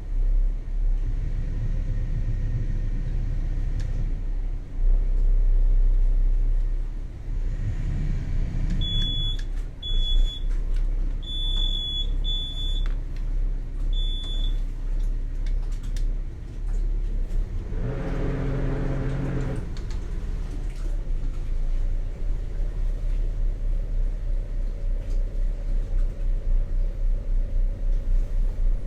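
Motor yacht's engine running with a steady low rumble while manoeuvring into a lock. A string of five short high electronic beeps comes partway through, and later a brief low pitched tone sounds for about a second and a half.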